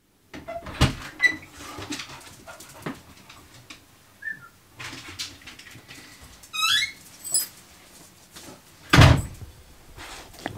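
A door being opened and someone stepping out, with scattered knocks and footsteps, a dog whining briefly in the middle, and one heavy thump near the end.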